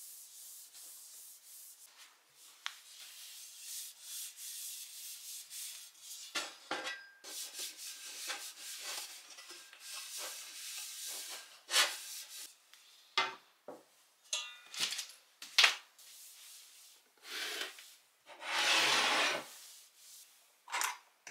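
A cloth being wiped over a wooden desktop and a laptop stand: irregular rubbing strokes with a few light knocks, and one longer wipe near the end.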